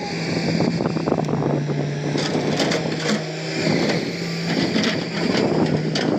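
Hitachi excavator's diesel engine running with a steady drone, under irregular clattering and scraping from the machine at work.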